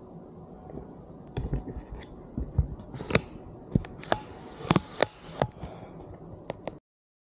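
Irregular sharp clicks and knocks of hands handling the camera as it is reached for and picked up, over a low steady room hum. The recording then cuts off abruptly near the end.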